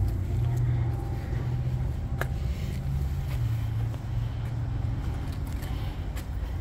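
A motor vehicle engine idling, a low steady rumble, with a few light clicks over it.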